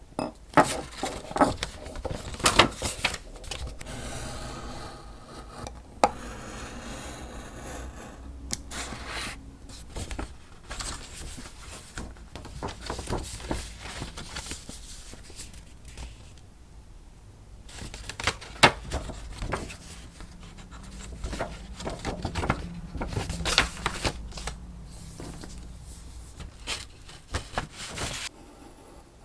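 Paper being folded, creased and handled while an envelope is made: crisp rustles and crinkles with sharp taps and clicks, coming in bursts with a short quieter pause partway through.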